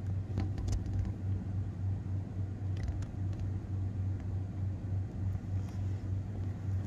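A steady low hum over a low rumble, with a few faint clicks.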